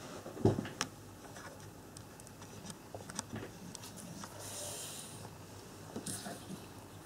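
Hands handling and pressing a folded piece of white cardstock on a cutting mat: a knock about half a second in, then scattered light taps and clicks, with a short rustle of sliding paper near the middle.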